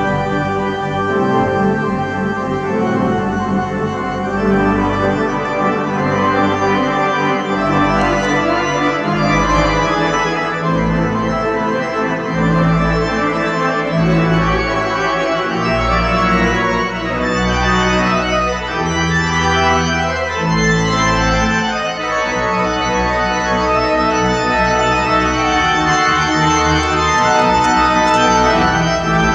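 The Conference Center's Schoenstein pipe organ playing loudly and continuously: sustained full chords over a low pedal bass that steps from note to note every second or two, heard in a large hall.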